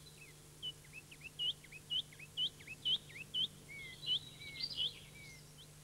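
Birds chirping in a morning scene: a string of short, high, rising chirps about twice a second, with a few lower falling whistles mixed in toward the end.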